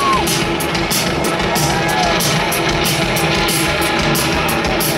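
Rock band playing live through a large outdoor PA: a steady drum beat with regular cymbal hits, electric guitar and bass, loud and continuous.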